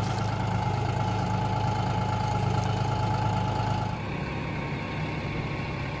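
John Deere compact tractor's diesel engine running steadily at low revs while its front loader handles a log, with a steady whine over the engine note. About four seconds in the sound shifts to a quieter, different engine note.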